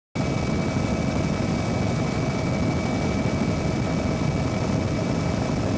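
Helicopter engine and rotor noise heard from on board: a steady, dense rumble with a constant high whine, cutting in suddenly just after the start.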